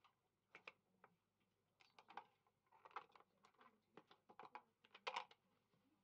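Playing cards and a clear plastic card holder being handled on a card table: faint, irregular clicks and taps in quick clusters, loudest about five seconds in.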